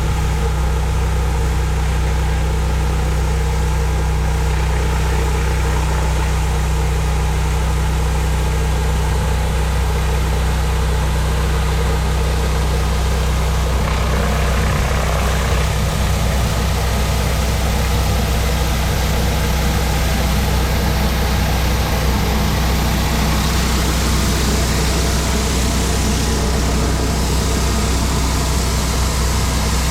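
Pressure washer engine running steadily under load, with the hiss of high-pressure water spraying against concrete. The hiss swells somewhat around the middle and again later on.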